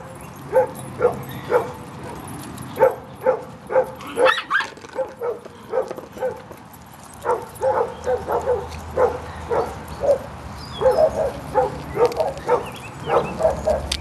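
Small dogs barking in short, high yaps, about two a second in clusters, with a brief lull near the middle of the run.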